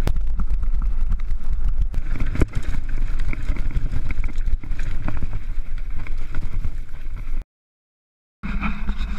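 Mountain bike riding down a rough dirt-and-gravel trail: heavy wind buffeting and tyre rumble on an action camera's microphone, with rattling clicks from the bike over stones. The sound cuts to silence about seven and a half seconds in, then different outdoor noise starts just before the end.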